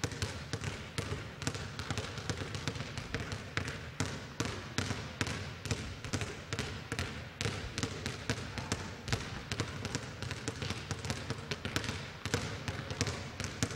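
Basketballs being dribbled on a court floor: sharp bounces, several a second, at an uneven, overlapping rhythm that suggests more than one ball going at once.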